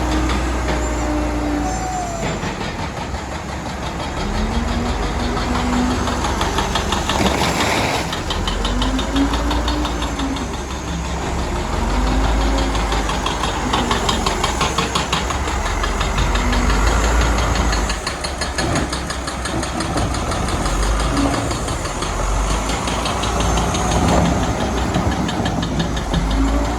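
Heavy earthmoving machine's diesel engine working under load, its pitch rising and falling again and again as it revs up and eases off, over a steady low drone and a rapid clatter.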